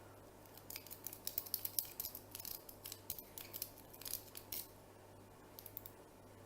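Lock pick and tension tool working the pins of a Lane double-cylinder deadbolt's pin-tumbler cylinder: a quick run of small metal clicks and scrapes for about four seconds, then a few faint ticks near the end.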